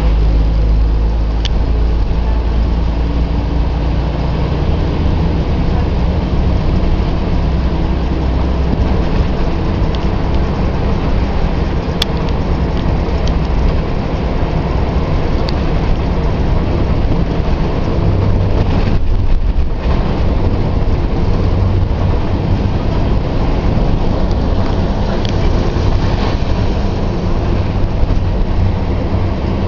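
Volvo B10M bus's six-cylinder diesel engine running steadily under way, driving through a ZF Ecomat automatic gearbox. About two-thirds of the way through, the sound thins briefly and then settles on a new steady low note.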